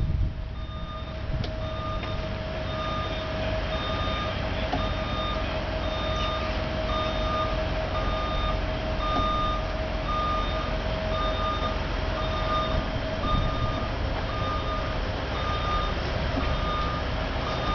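Truck reversing alarm beeping steadily, about once a second, over a continuous hum and the low rumble of the truck's engine running.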